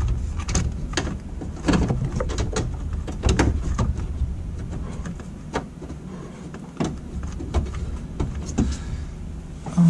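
Scattered light clicks and knocks of plastic trim being handled as a shifter bezel is worked down over an automatic transmission's shift lever, over a low steady rumble.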